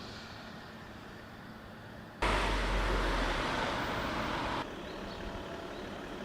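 Storm noise of wind and rain, with no tones in it. About two seconds in it jumps suddenly to a loud rush, with a deep rumble of wind on the microphone, then drops back to a steadier hiss about two seconds later.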